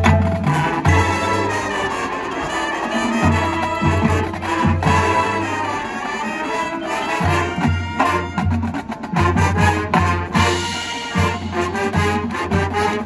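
Marching band playing its field show: full brass with percussion, held brass chords over short, repeated low drum hits.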